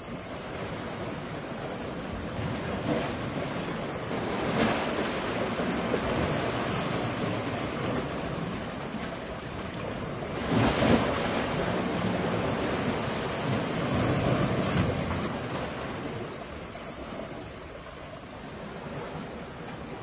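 Ocean waves crashing: a continuous rush of surf that swells as each wave breaks, the biggest break about halfway through, then easing off toward the end.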